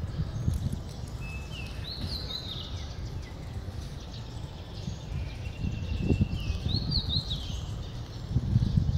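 A songbird singing two similar short phrases of quick high notes that step up and then fall, a few seconds apart, over a steady low outdoor rumble.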